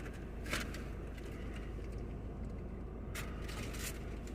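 Light handling noise from a crunchy taco and its wrapper: a short crackle about half a second in and a rustle near the end, over a steady low rumble.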